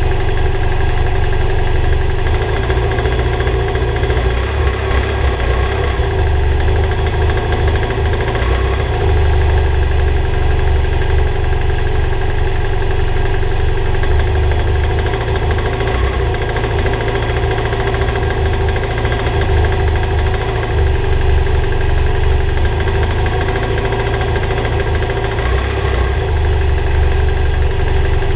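BMW F800GS parallel-twin engine idling steadily with a weird knocking sound, which the owner suspected was piston slap. The knock was traced to worn pistons and a connecting-rod bearing.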